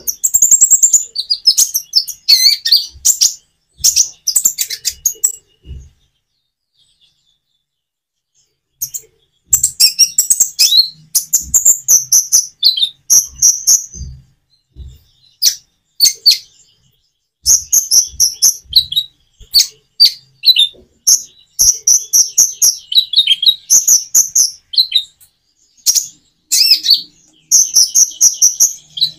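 Kolibri ninja (konin) sunbird singing: rapid, high, thin chirping phrases in bursts. There is a pause of about three seconds some six seconds in, then the song runs on almost without a break.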